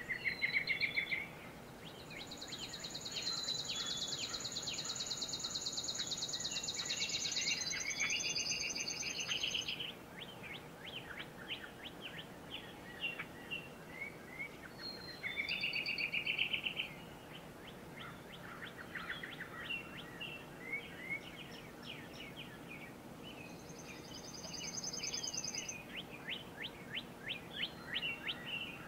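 Several songbirds singing. There is a high, fast trill lasting about five seconds, starting a couple of seconds in, and a shorter trill near the end, among quick repeated chirps and short buzzy notes.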